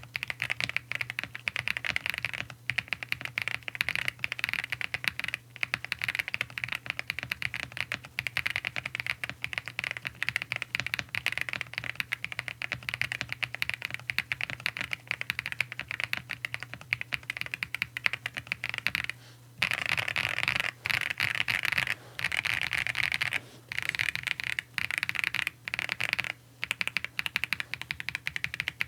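Zoom75 mechanical keyboard with stock CK x Haimu Pastel Thistle tactile switches on a polycarbonate plate, fully foamed, being typed on fast and without let-up: a dense patter of keystrokes, broken by a few short pauses in the last third.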